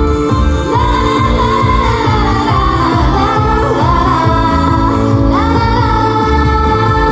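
Japanese idol pop song performed live: female voices singing a melody over backing music with a steady beat.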